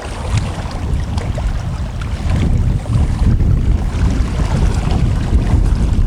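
Strong wind buffeting the microphone in a low, rumbling roar that grows louder about two seconds in, over the wash of waves on shallow water.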